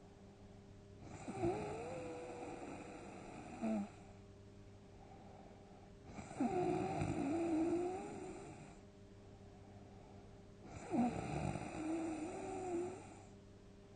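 Snoring in a steady rhythm: three snores about five seconds apart, each a wavering pitched rattle lasting about two and a half seconds, with quiet breathing between; the first ends in a short snort.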